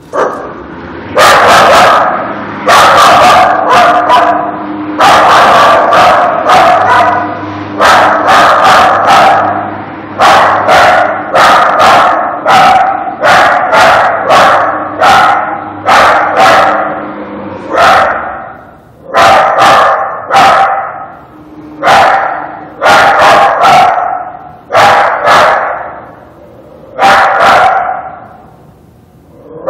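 A dog barking over and over. The barks come in quick runs for about the first half, then as single barks every second or two.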